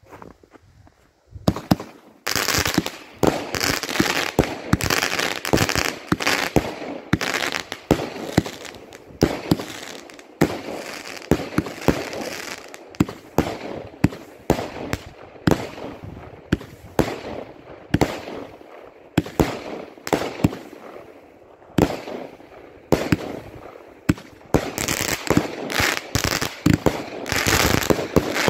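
25-shot, 20 mm firework cake firing: a fast, uneven run of shots and bursts that starts about a second and a half in and keeps going.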